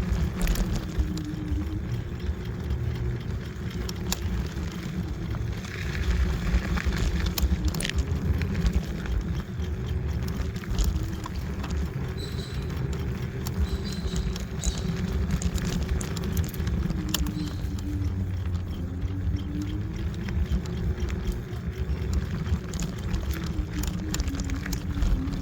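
Kaabo Wolf Warrior electric scooter being ridden: the hub motors whine in a tone that rises and falls with speed, over heavy wind buffeting and tyre rumble, with scattered sharp clicks and knocks.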